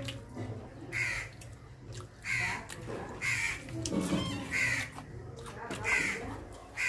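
Crows cawing over and over, about one harsh call a second.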